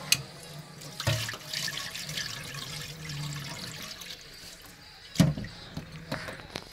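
Rice being washed by hand in an aluminium pot: water sloshing as the grains are swirled and the cloudy rinse water is poured off into the sink. A few sharp knocks come at the start, about a second in and about five seconds in, the last the loudest.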